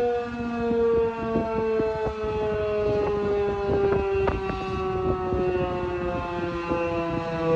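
Outdoor tornado warning siren sounding, a multi-tone wail whose pitch slides slowly downward, with gusts of wind noise on the microphone underneath.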